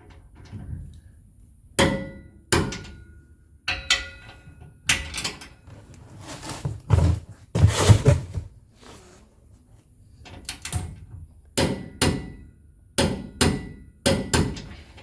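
Metal hand tools knocking and clinking against the tow bar's bolts and steel frame: about a dozen sharp, irregular metallic knocks, some ringing briefly. A longer, louder scraping rattle comes in the middle.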